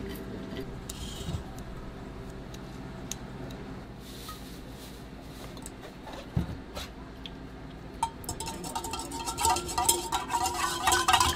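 A stand mixer's wire whisk knocking and clinking against a stainless steel mixing bowl, with ringing metallic clinks that come thick and loud in the last few seconds.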